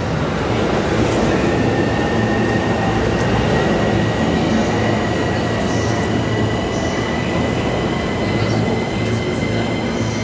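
Commuter electric train in orange-and-green livery running into the station platform: a loud steady rumble of wheels and cars, with a high, steady squeal that sets in about a second in as it slows to stop.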